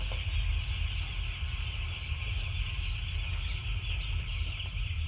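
A dense chorus of many week-old chicks peeping continuously in a flock, over a steady low rumble.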